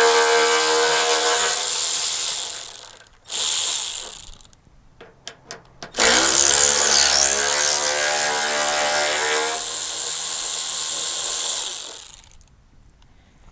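Battery-powered ratchet with a 10 mm socket whirring as it backs out the headlamp-assembly bolts on a 2002–2005 Dodge Ram. It runs in one long spell to about three seconds in, gives a short burst, and after a few light clicks runs in a second long spell from about six seconds in until near the end.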